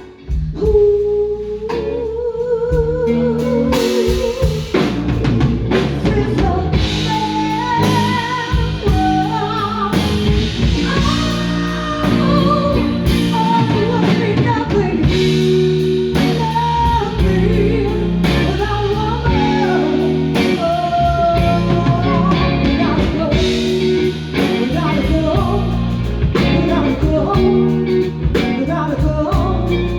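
Live band with drum kit, bass and electric guitar playing a slow soul-blues ballad. About a second in, one long wavering note is held, then a lead line with bends and vibrato carries on over the band.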